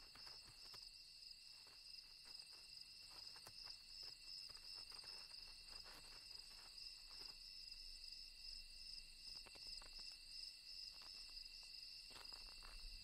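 Faint, steady chorus of night insects: a continuous high trill made of several fixed pitches, with faint scattered ticks and scratches.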